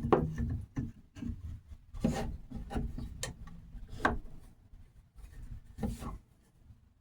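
Hardwood pieces being handled and fitted together: a handful of irregular wooden knocks with rubbing and scraping between them, dying away near the end.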